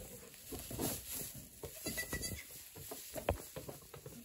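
Pygmy goats: a short bleat about two seconds in, amid scattered knocks and rustling, with one sharp knock a little after three seconds.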